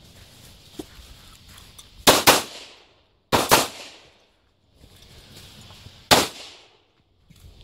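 Handgun shots fired in quick pairs: two double taps about a second apart, then one more shot a few seconds later.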